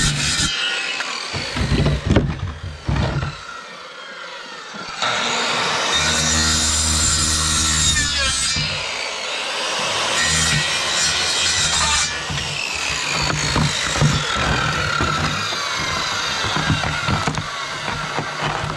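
Corded circular saw cutting through frozen moose ribs, the blade grinding through meat and bone. The saw eases off briefly about four seconds in, then bites in again and keeps cutting.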